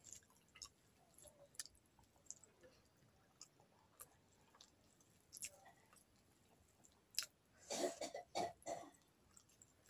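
Faint close-up mouth sounds of a person eating fried fish and rice by hand: chewing with small wet clicks and smacks. About eight seconds in comes a short cluster of louder mouth noises.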